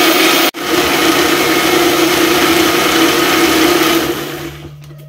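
Electric mixer grinder (mixie) wet-grinding coconut, rice and shallots into batter. The motor cuts out for an instant about half a second in, runs on steadily, then switches off about four seconds in and winds down.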